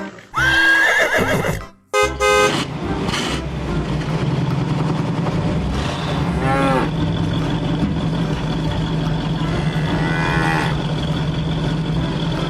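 A horse whinny in the first two seconds, then a steady engine-like drone with two short animal calls over it.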